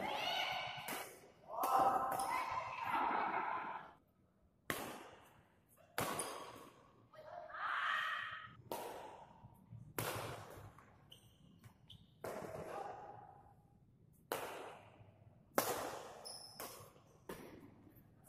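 Badminton rally: sharp racket strikes on the shuttlecock at irregular intervals of about a second, each with a short echo. Players' voices call out in the first few seconds and again about eight seconds in.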